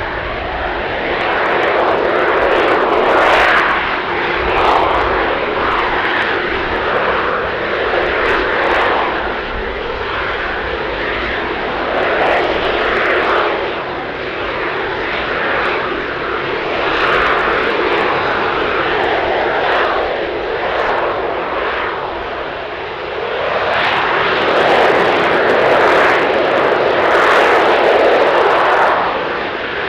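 AV-8B Harrier II's Rolls-Royce Pegasus vectored-thrust turbofan holding the jet in a hover: a loud, continuous jet roar that swells and eases every few seconds, loudest near the end.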